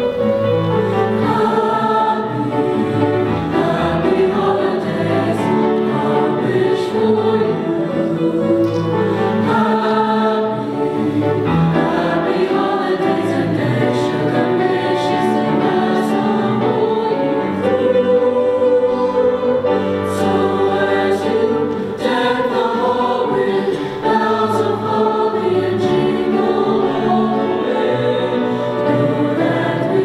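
Mixed chorus of male and female voices singing.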